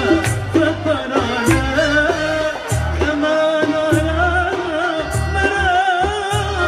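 A woman singing live through a microphone, a wavering, ornamented Arabic-style melody over a band with a pulsing bass beat and percussion hits.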